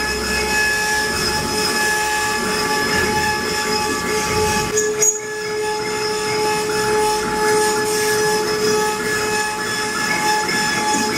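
CNC wood carving router running, its spindle giving a steady high whine over the noise of the bit cutting wood, with a brief dip about five seconds in.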